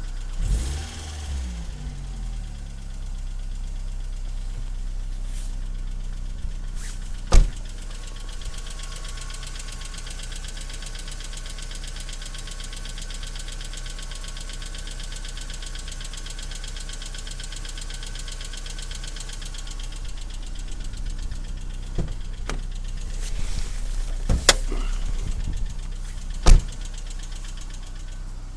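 BMW E46 318i four-cylinder engine idling cold with a rapid metallic ticking rattle from the valvetrain, the sign of worn hydraulic valve lifters. The revs fall away right at the start, and a few sharp knocks stand out over the running engine later on.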